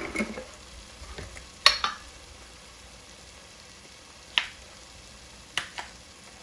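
Onions and berbere chili powder frying in oil in a pot, a faint steady sizzle. About five sharp clicks, a utensil tapping the pot, come near 2 s, 4 s and 6 s as spices go in.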